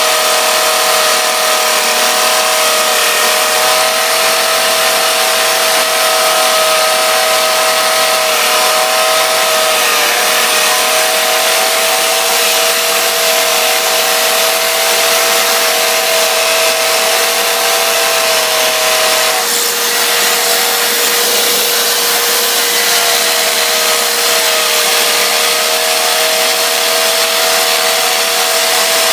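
Electric power tool motor running continuously with a loud hissing whir and a steady whine. A second whine wavers and drops out about two-thirds of the way through, then comes back lower and climbs again.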